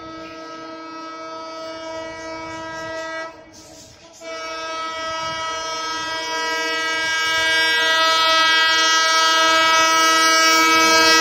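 WDM-3A diesel locomotive's air horn sounding a long chord-like blast that breaks off about three seconds in, then a second long blast that grows steadily louder as the locomotive approaches.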